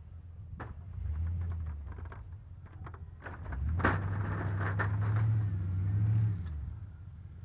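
Plow truck's engine working as it pushes snow with a stainless V-plow, swelling louder about a second in and again for a few seconds past the middle. Scraping and crackling clicks from the blade and snow ride over the engine, thickest around the middle.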